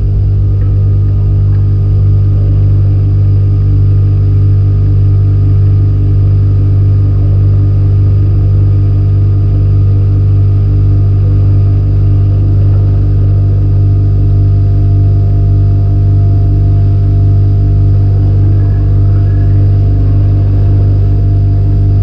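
Processed field recording of a refrigerator's hum: a loud, steady drone, strongest in the low hum, with several steady higher tones above it.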